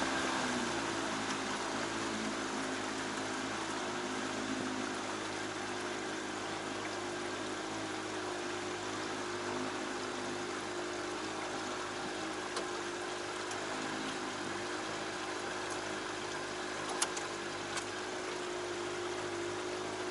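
A small jon boat's motor running steadily at low speed, its hum dropping in pitch in the first second and then holding, over a steady hiss of water. Two short knocks near the end.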